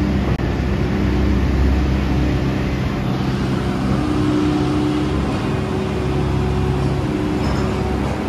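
Heavy machinery running inside a railway tunnel under construction: a steady, loud drone with a deep hum and several steady engine-like tones.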